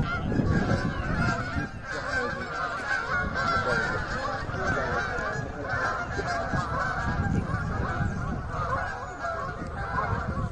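A large flock of Canada geese honking in flight, many calls overlapping without a break.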